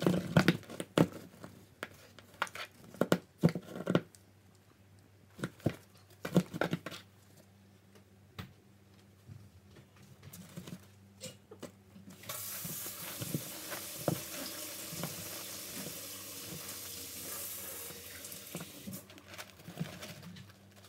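A kitten pawing and scratching at a cardboard box, a quick run of taps and scrapes that thins out after the first few seconds. About halfway through, a steady hiss starts and runs for several seconds over a faint low hum.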